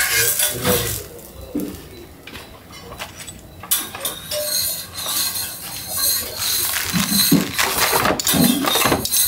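A metal spatula scraping and clinking, irregularly, against a dosa griddle and an aluminium serving plate as a folded masala dosa is lifted off and pressed and cut on the plate.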